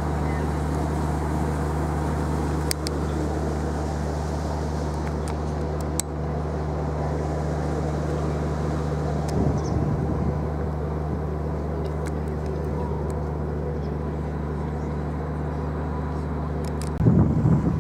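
Car ferry MV Wight Light's engines and machinery giving a steady low drone. Wind buffets the microphone briefly about halfway through and more strongly near the end.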